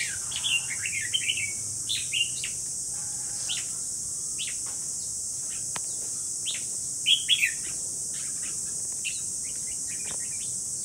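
Caged red-whiskered bulbuls give short chirps and brief song phrases, scattered throughout, with the loudest burst about seven seconds in. A steady high insect drone runs underneath.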